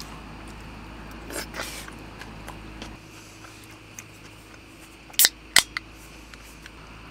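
A short rustle, then two loud sharp clicks close together, about a third of a second apart, with a fainter third click just after.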